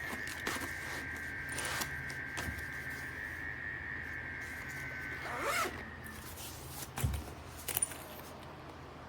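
Zipper on a padded laptop case being worked, with scraping handling noise, over a steady high whine that stops a little past halfway; a couple of sharp clicks near the end.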